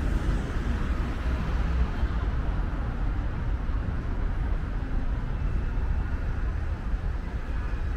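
City street traffic noise: a steady rumble of cars passing along the road.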